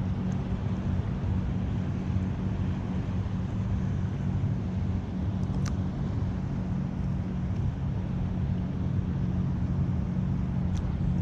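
A steady low motor hum over wind and water noise, with two sharp clicks, one about halfway through and one near the end.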